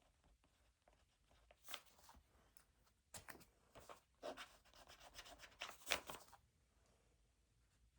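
Faint handwriting on paper: a run of quick scratchy strokes, densest from about three to six seconds in.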